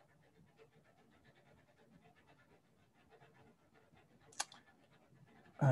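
Faint steady whirring of an overhead fan in a small room, picked up by a computer microphone. A short sharp click comes a little over four seconds in, and a louder sound starts right at the end.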